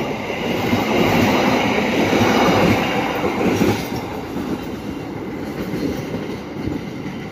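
Argo Wilis passenger train's coaches running past at speed, wheels on the rails. The sound is loudest in the first few seconds, then fades as the end of the train moves away.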